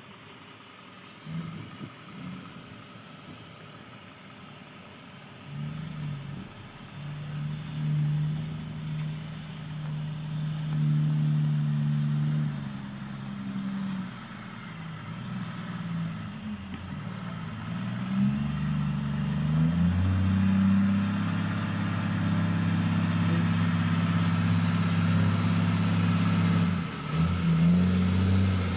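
Diesel engine of a loaded logging truck pulling its log trailer. It comes up about five seconds in, and its pitch steps up and down as the revs change. It grows louder and runs steadily under load from about twenty seconds in.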